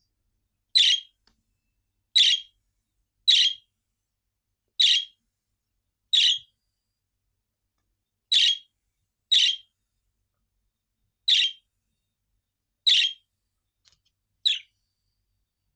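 Budgerigar giving short, sharp chirping calls, about ten in all, spaced one to two seconds apart with silence between.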